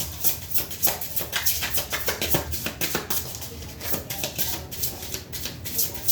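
Tarot cards being shuffled by hand to draw a clarifier card: a run of quick papery slaps and clicks, several a second.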